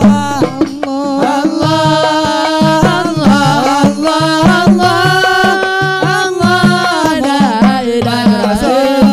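A group singing a devotional Arabic qasida, accompanied by hand drums and a frame drum (rebana) playing a steady, driving rhythm.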